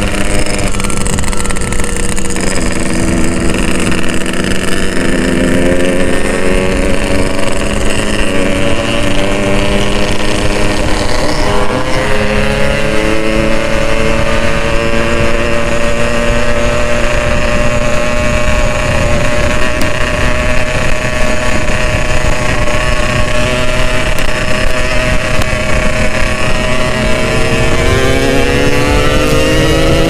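Two-stroke Yamaha motorcycle engine running on the road, heard from the rider's own bike over some wind on the microphone. Its pitch climbs slowly, drops at a gear change about a dozen seconds in, then rises again as it accelerates near the end.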